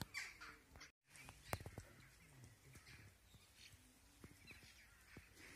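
Faint outdoor ambience with a bird calling briefly at the start. The sound drops out completely for a moment about a second in, followed by a single sharp click, then near silence.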